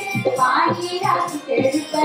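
Himachali folk song for the Bilaspuri Gidda dance: voices singing over a steady dhol drum beat.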